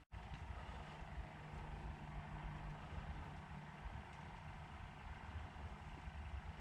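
Faint low rumble with a faint steady hum for about three seconds of it.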